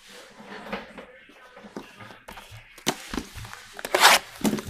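A shrink-wrapped box of Donruss Optic UFC trading cards being handled: a few clicks and knocks as it is picked up, then a louder rustle of the plastic wrap about four seconds in.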